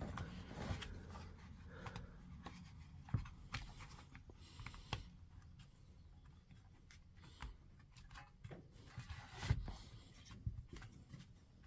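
Faint clicks and taps of small tool parts being handled and fitted by hand, with a few sharper knocks, during reassembly of a cordless SDS rotary hammer.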